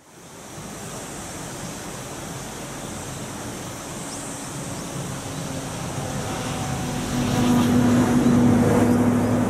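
JR East E129 series electric train approaching, over a steady rushing background noise; its running noise and a steady motor hum grow louder from about six seconds in.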